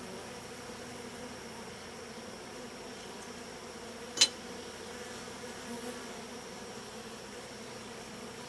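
Honey bees humming steadily from an opened hive colony, with one sharp click about four seconds in.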